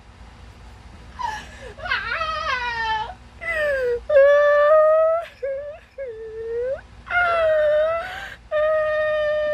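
A person crying and wailing in long, high-pitched whimpering cries, some gliding down in pitch and some held steady, starting about a second in.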